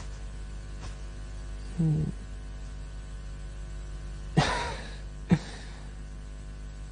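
A steady low electrical hum, with a brief low vocal sound about two seconds in. Then a sharp knock comes about four and a half seconds in with a short ringing tail, and a smaller knock follows a second later.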